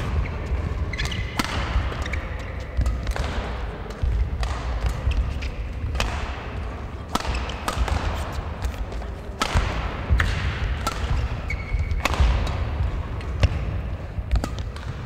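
Badminton rally: rackets strike the shuttlecock sharply about every second or so, with the players' footsteps thudding on the court and a few brief shoe squeaks.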